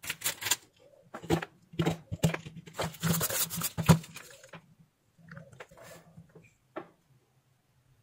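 Hand tools and a small plastic tube being handled and set down on a workbench: a dense run of clicks, taps and rustles in the first four seconds, then a few fainter taps.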